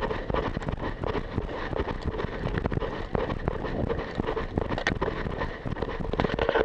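Wind buffeting a body-worn camera's microphone, with a dense, irregular run of knocks and rattles from the camera and gear being jostled as the wearer moves. It stops suddenly at the end.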